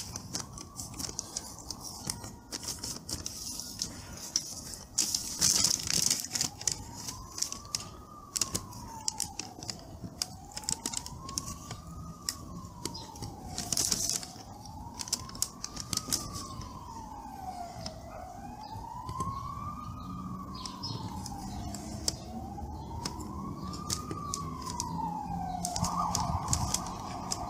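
Emergency vehicle siren wailing, rising and falling about every four seconds, switching to a steady higher tone near the end. Scattered sharp clicks and crackles run over it, loudest about five and fourteen seconds in.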